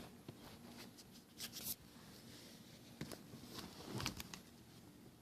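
Faint scattered rustling and small clicks of handling in a quiet small room, with two slightly louder rustles, the first about a second and a half in and the second near four seconds.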